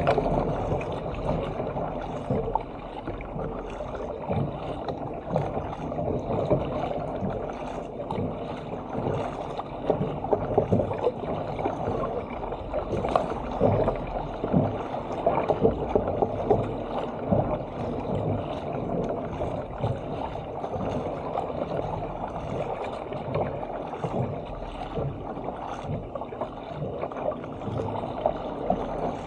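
Sea water rushing and splashing along the hull of a Stealth 457 fishing ski paddled through chop, with irregular splashes from the paddle blades.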